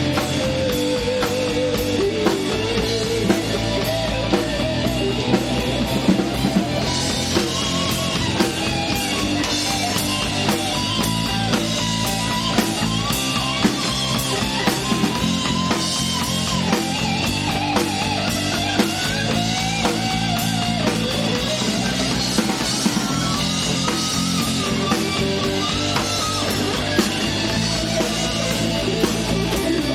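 Live rock band playing: drum kit, bass and electric guitars in a steady rock groove, with a wavering, bending lead melody line above.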